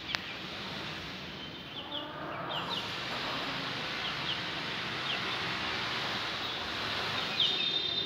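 Small birds chirping in short, scattered calls over a steady rushing background noise that swells a few seconds in, with a fuller bird call near the end.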